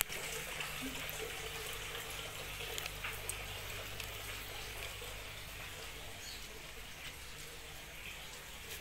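Steady trickle and splash of water falling into a garden koi pond.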